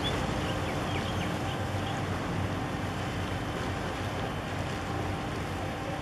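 Steady drone of a boat's engine, with water rushing and wind buffeting the microphone.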